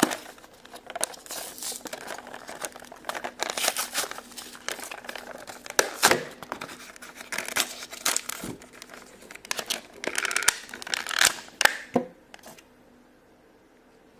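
Toy packaging being handled and unpacked: crinkling and tearing with scattered sharp clicks and rustles, stopping about two seconds before the end.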